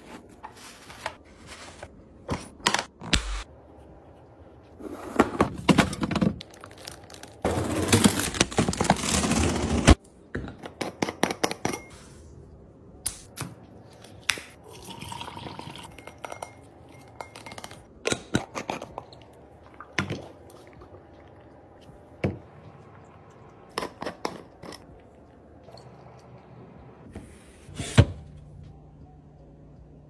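Close-up kitchen handling sounds: plastic food-storage containers and lids clicking and knocking against the counter, a paper towel rustling, and sliced cucumbers dropping into a glass jar. Sharp clicks and knocks come in scattered clusters, with two longer noisy stretches about five and eight seconds in.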